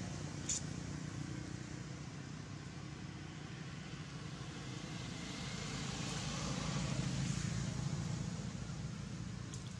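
Steady low rumble of a motor vehicle running in the background, growing louder around seven seconds in and then easing off, with one sharp click about half a second in.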